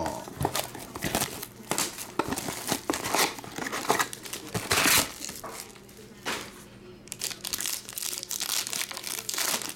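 Clear plastic wrap and a foil trading-card pack crinkling as they are handled and torn open: an irregular run of sharp crackles and rustles, loudest in the middle.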